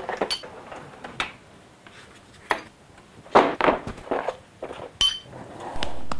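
Metal tools from a socket set being handled and set into their plastic case: scattered metallic clinks and knocks, with a sharp ringing clink about five seconds in.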